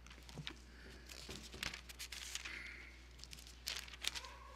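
Bible pages being leafed through to find a passage: soft paper rustling with scattered sharper crinkles, most of them about four seconds in.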